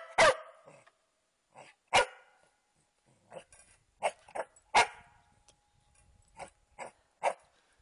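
Small dog barking: a string of short, sharp barks, unevenly spaced, some loud and some softer.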